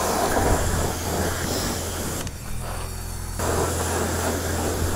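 High-pressure washer lance at a self-service wash bay, spraying water onto a moped's front wheel and mudguard: a steady hissing spray over a low machine hum. The spray stops for about a second near the middle, leaving only the hum, then starts again.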